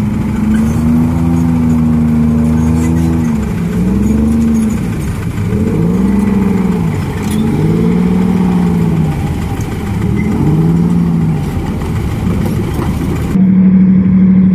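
Diesel engines of armoured military vehicles, including tracked personnel carriers, driving past, their pitch rising and falling again and again as they rev. Near the end, after a cut, one engine runs at a loud steady pitch.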